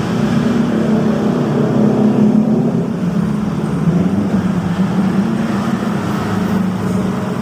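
Steady, loud engine drone with a low hum that wavers slightly in pitch over a rumbling noise bed, like nearby road traffic.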